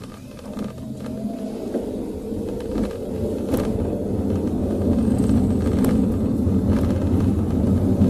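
Car engine and road noise heard from inside the cabin, a low rumble that grows steadily louder as the car picks up speed.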